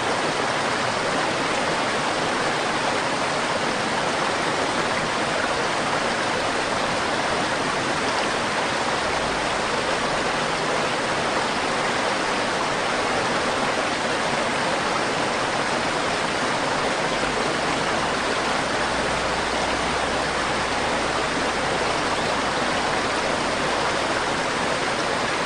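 River water rushing and babbling over stones in a steady, even flow.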